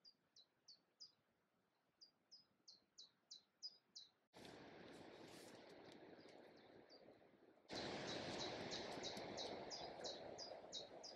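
A small songbird singing a series of short, sharp, descending notes, a few at a time and then a faster run. A steady outdoor background noise comes in suddenly about four seconds in and grows louder near eight seconds, with the bird still singing over it.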